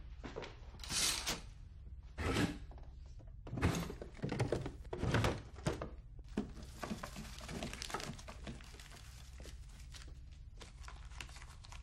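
Someone rummaging through wooden furniture: a string of thunks and knocks as wooden doors, a box lid and drawers are opened and shut, loudest in the first half. It gives way to lighter clicks and rustling as small objects are handled.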